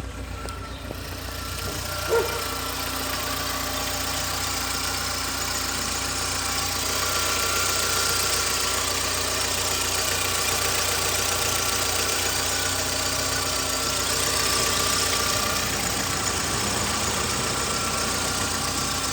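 Volkswagen Gol G5's four-cylinder engine running steadily at idle just after being started, with a brief sharp noise about two seconds in. The owner suspects the strange noise is down to the 20W50 mineral oil in it, which is not recommended for this engine.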